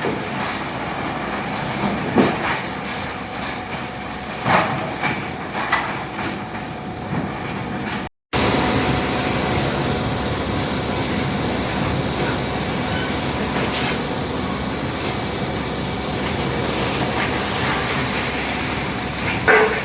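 Tub grinder running as it shreds wood waste and branches: steady, loud mechanical noise with occasional sharp knocks. The sound cuts out for a moment about eight seconds in, then carries on steadier.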